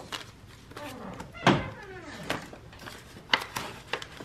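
Hands working a ring-binder cash budget book and paper bills: a run of sharp clicks and knocks from the binder's metal rings and cover, loudest about a second and a half in and again past three seconds, with soft rustling in between.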